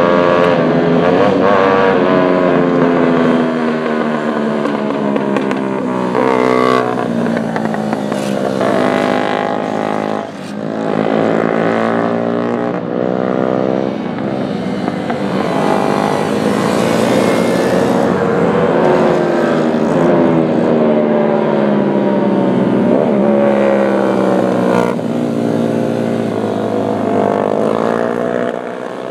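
Racing motorcycle engines revving hard as several bikes ride the circuit, their pitch climbing and dropping again and again with throttle and gear changes, several engines overlapping.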